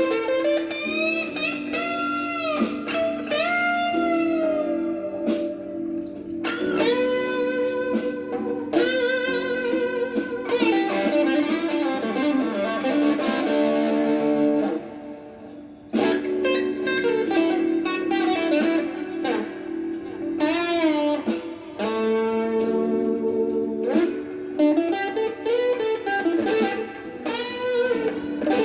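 Gibson Les Paul Traditional electric guitar playing a blues lead, with string bends sliding notes up and down over low notes held underneath, a fast run of notes, and a short drop-out about halfway through.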